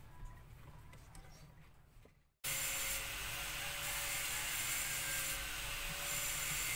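Faint clicks and rubbing of a parking brake handle cover being pushed onto its lever by hand. Then, after a brief dropout, a steady hiss with a faint hum starts suddenly and carries on unchanged.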